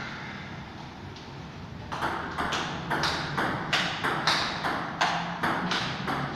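Table tennis rally: the ball clicks off the paddles and bounces on the table in quick, even hits about three a second, starting about two seconds in.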